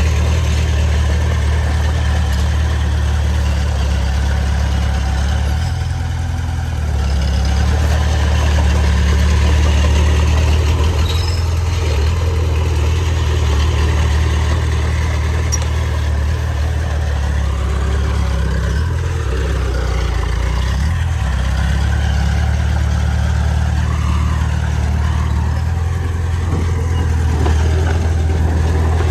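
Heavy diesel earthmoving machine engine running steadily under load, a deep continuous hum with brief slight changes in pitch about six seconds in and again around twenty seconds.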